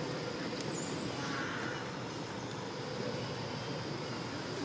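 Steady low outdoor background rumble, with a faint, brief higher sound a little over a second in.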